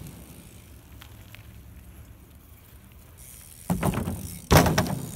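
A BMX bike hitting a makeshift ramp a little under four seconds in, then a louder impact as it lands under a second later.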